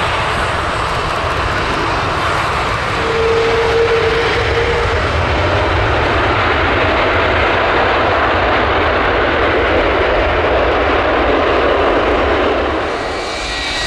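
Jet engines of a Jet2 Airbus A330 running loud and steady as the airliner rolls along the runway, swelling slightly about three seconds in, with a short steady whine at about that point.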